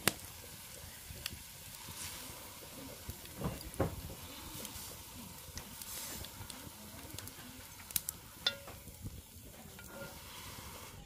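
Cooking sounds: a steady faint hiss with scattered light clicks and a couple of soft knocks a few seconds in.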